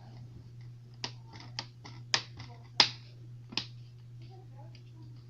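Sharp plastic clicks and snaps from a Chromebook being handled during reassembly, about six of them, the two loudest near the middle, over a steady low hum.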